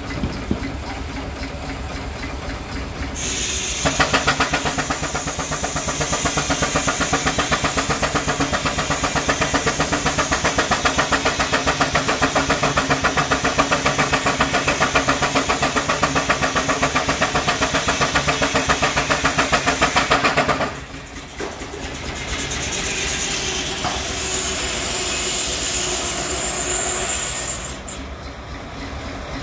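Steam traction engine working hard under load driving a sawmill, its exhaust beating fast and evenly with a high hiss over it. The load drops off suddenly about two-thirds of the way through. A second, lighter run follows and eases off near the end.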